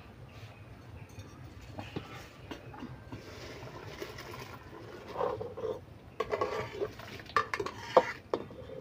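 A metal slotted spoon stirring and scraping in a large metal pot of boiling water as basmati rice goes in. There are scattered light clinks at first, then from about five seconds in a run of scraping and sharp clinks of metal on metal.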